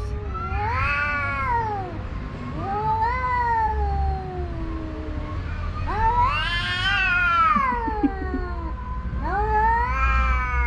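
Two tomcats yowling at each other in a standoff: long, wavering wails that rise and fall, about four in turn, sometimes overlapping. This is a threat display of rival males, typical of a shouting match that rarely turns into a real fight.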